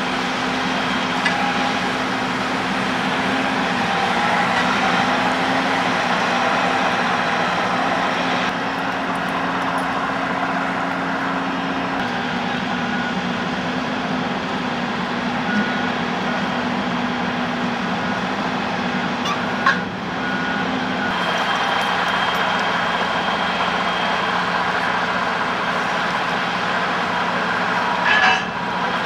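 Steady drone of heavy engines running, a low hum over a wash of mechanical noise, with a few brief knocks, the loudest about two-thirds of the way through and near the end.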